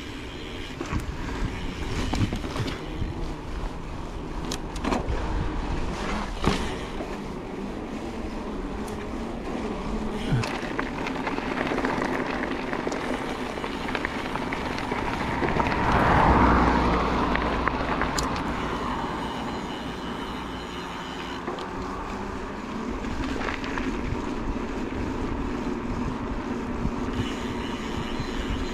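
Mountain bike rolling down a rough, rocky trail: steady tyre and wind rush with scattered knocks and rattles from the bike, swelling louder about halfway through.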